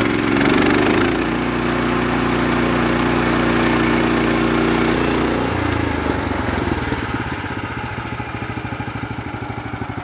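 Portable sawmill's gas engine running steadily under way, with a clear change in its note about five and a half seconds in.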